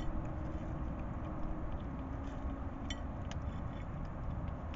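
Hedgehogs eating from a dish: a few faint sharp chewing clicks, about three of them, over a steady low rumble of background noise.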